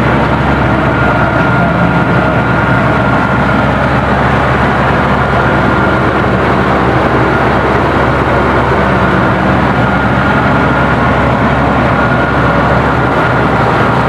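Komatsu bulldozer's diesel engine running steadily, heard up close from the operator's seat, with a thin steady high whine over it.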